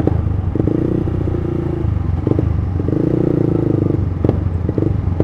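Motorcycle engine running steadily under way, with a few short clattering knocks as the bike goes over an uneven, bumpy road.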